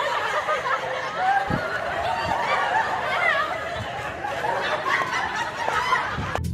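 Several people laughing and chuckling, their voices overlapping, with a brief low thud about one and a half seconds in.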